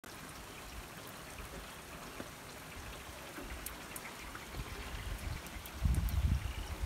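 Steady rain falling, an even hiss with a few sharp drop ticks. About six seconds in, a loud low buffeting rumble comes in over it.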